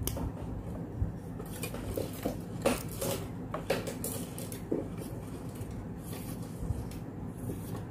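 Light, irregular clicks and rattles from hand-winding enamelled copper wire onto a plywood-and-bolt coil former for a passive crossover coil.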